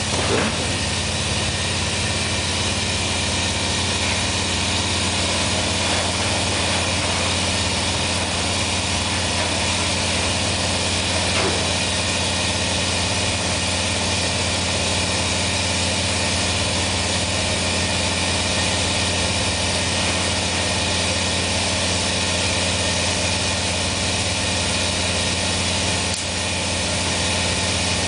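Glassblowing glory hole running at full heat: its burner and blower make a steady rushing noise with a low hum underneath.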